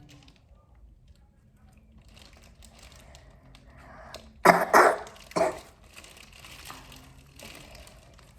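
Three quick coughs in about a second, halfway through, amid faint rustling.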